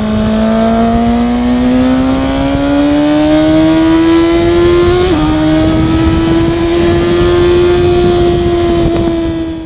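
A high-revving engine accelerating, its pitch climbing steadily for about five seconds, dipping briefly, then holding high before fading out at the end.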